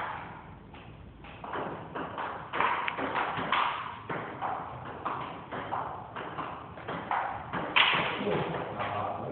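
Table tennis rally: the ball clicking off the paddles and bouncing on the table in quick succession. It starts about a second and a half in and keeps going to the end.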